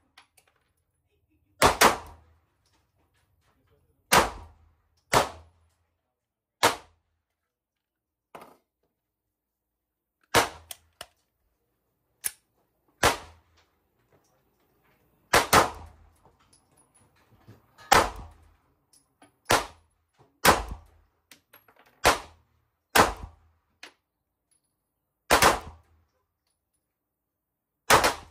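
Glock 43X MOS 9mm subcompact pistol being fired, about fifteen sharp shots at uneven intervals of roughly one to two seconds, some in quick pairs, with a few fainter shots among them.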